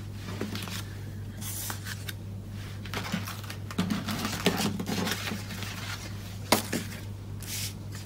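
Pieces of cardstock and patterned paper being handled and slid across a craft mat: scattered rustling and light scrapes, with one sharp tap about six and a half seconds in, over a steady low hum.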